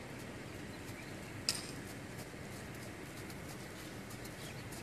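Horse trotting on a sandy arena, its hoofbeats faint and soft over steady outdoor background noise, with one sharp click about a second and a half in.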